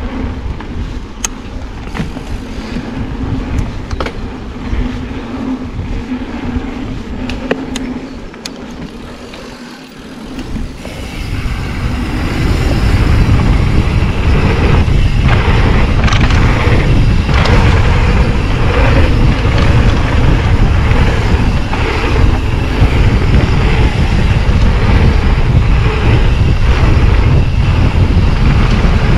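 Mountain bike riding down a dirt flow trail, heard from a GoPro on the bike or rider: tyre rumble and rattling over the ground, with wind noise on the camera's microphone. It is quieter with scattered sharp clicks and knocks for the first ten seconds or so, then grows much louder about eleven seconds in and stays loud.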